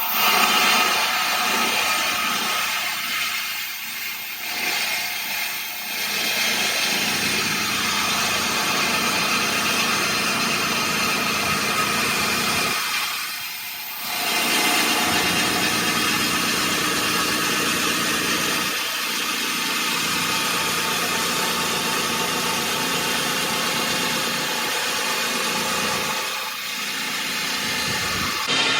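A machine engine running steadily, dropping off briefly three times.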